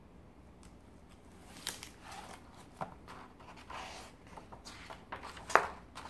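Hardcover picture book being opened and its paper pages turned: scattered rustles and light taps, the sharpest one about five and a half seconds in.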